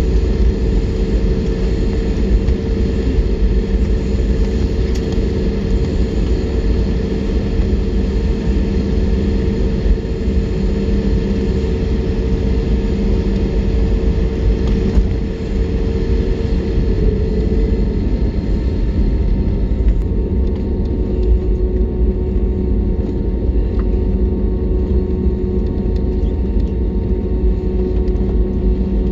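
Jet airliner cabin noise on the ground: the engines run at low power as a steady, loud low rumble with a steady hum over it. About two-thirds of the way through, the hum drops slightly in pitch and the hiss quietens.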